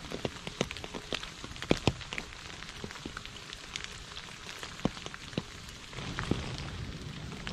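Light rain falling on a puddled path and wet leaves: a steady soft hiss with many separate drops plinking distinctly, getting slightly louder about six seconds in.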